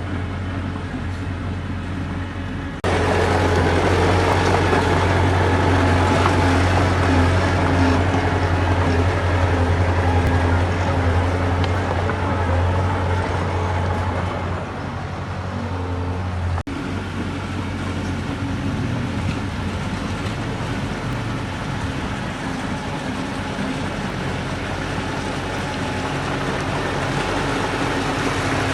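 Heavy earthmoving machinery's diesel engines running steadily with a strong low hum, under noise from the work. The sound changes abruptly twice, about three seconds in and again a little past halfway.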